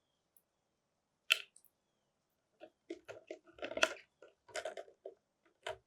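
Parrot's beak biting and crunching: one sharp click about a second in, then an irregular run of clicks and crunches through the second half.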